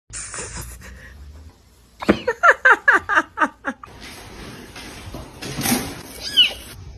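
A short burst of human laughter, about eight quick 'ha's that each fall in pitch, followed near the end by one brief high-pitched call that rises and falls.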